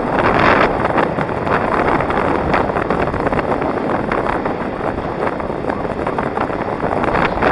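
Heavy wind buffeting on the microphone of a camera carried by a fast-moving inline skater, over the steady rumble of skate wheels rolling on asphalt. The buffeting is strongest in the first half second and again near the end.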